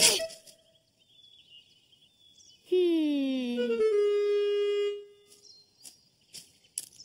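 Cartoon score cue on a woodwind, clarinet-like: a note sliding downward in pitch for about a second, then a held note for about a second more, starting about three seconds in.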